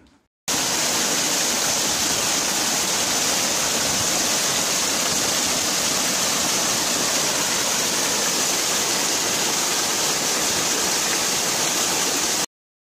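Small waterfall pouring onto rocks into a stream: a steady sound of falling water that starts abruptly about half a second in and cuts off suddenly near the end.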